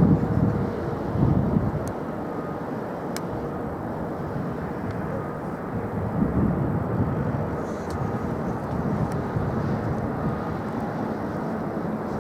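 Steady rumble of jet airliner engines, with louder low swells at the start, about a second in and again about six seconds in.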